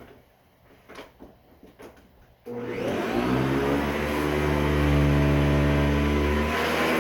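A few light knocks, then a vintage Hoover upright vacuum cleaner switched on about two and a half seconds in: its motor whines up in pitch and settles into a steady running hum. It is plausibly the machine fitted with an aftermarket 11-blade fan, which its owner finds smooth and quieter.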